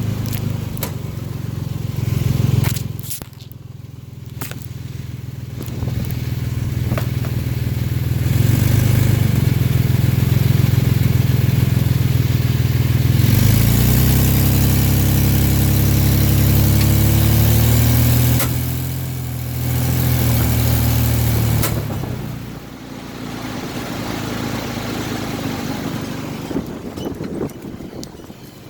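Car engine running while driving, with road noise; about halfway through, the engine note rises as it revs up, then it eases off. The owner reports a knocking from the crankcase along with a felt push while driving.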